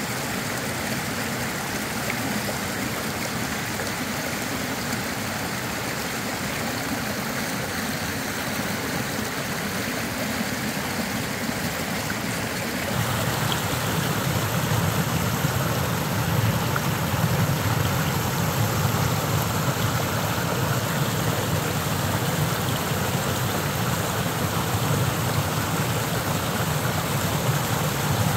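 Mountain stream rushing over rocks in a steady wash of water. About thirteen seconds in it changes to the louder, deeper rush of a small cascade pouring into a pool.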